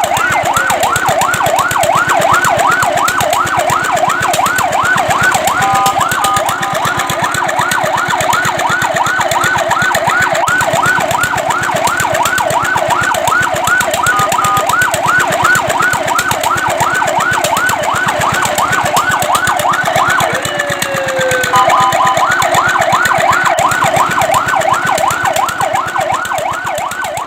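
Fire truck siren sounding a fast, continuous yelp, its pitch sweeping up and down several times a second. It is briefly interrupted three times by a short steady multi-note tone.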